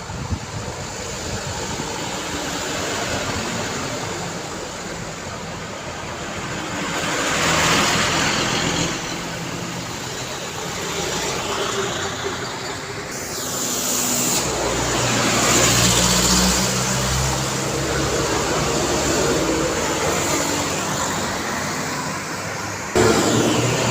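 Roadside city traffic: a steady stream of cars and other motor vehicles passing, their engines and tyres swelling up as each goes by, loudest about a third and two thirds of the way through. Near the end the level jumps up suddenly.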